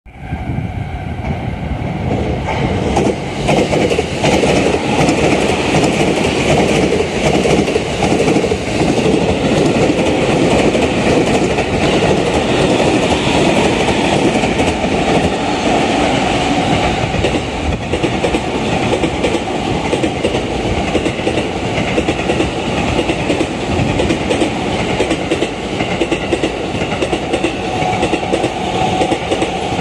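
JR East electric commuter trains passing at speed on the next tracks: an E217 series Yokosuka Line train, then a green-and-orange Tokaido Line train. The wheels clatter over the rail joints in a continuous loud rumble.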